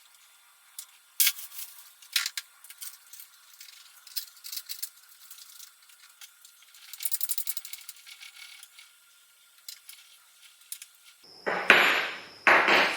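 Small metal hardware clicking and rattling as flange bolts and a socket/hex key wrench are handled and worked to fasten legs onto a wood chipper's frame, with a quick run of rapid ticks about seven seconds in. Louder clattering of parts near the end.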